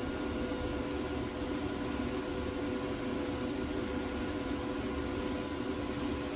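TIG welding arc burning steadily on a fillet joint in steel whose surface was ground clean, with filler rod fed in by hand: an even hiss and hum with a few steady tones, unbroken throughout.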